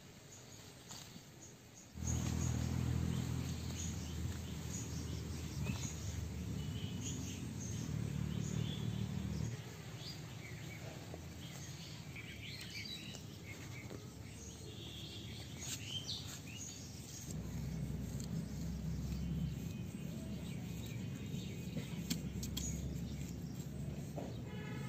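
Small birds chirping now and then over a steady low rumble outdoors; the rumble starts about two seconds in.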